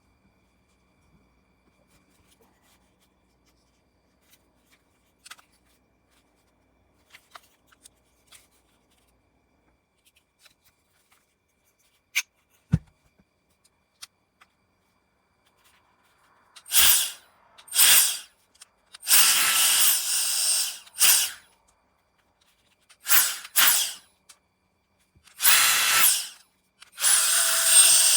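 Cordless electric air duster's high-speed fan blowing in a series of short blasts of rushing, high-pitched air, about eight of them, each from a fraction of a second to about two seconds long, starting a little past the middle. Before that there are only a few faint clicks.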